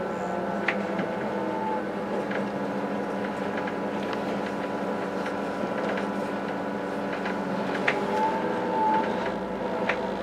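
An SNCF B 81500 AGC bi-mode train under way, heard from on board: a steady running rumble with a few steady tones, and a few sharp clicks scattered through it.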